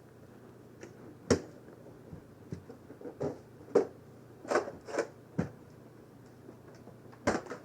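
Sharp plastic clicks and snaps from Nerf foam-dart blasters being handled, primed and fired, about eight separate snaps spread over several seconds, the loudest about a second in.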